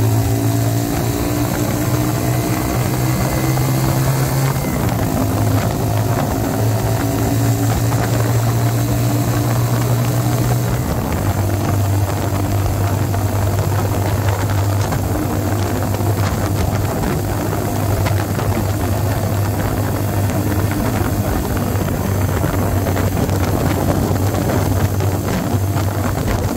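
Mutt Akita 125's single-cylinder engine running at a steady cruise through a slash-cut exhaust freshly repacked with glass fibre packing, with wind noise on the microphone. The engine note steps down in pitch twice, about five and eleven seconds in.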